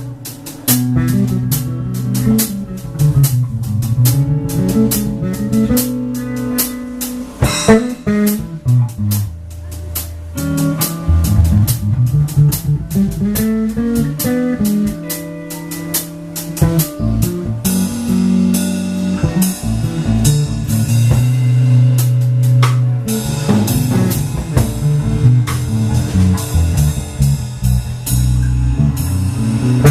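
Live blues band playing an instrumental passage: electric guitar over bass guitar and a drum kit keeping a steady beat. The cymbals get brighter about two thirds of the way through.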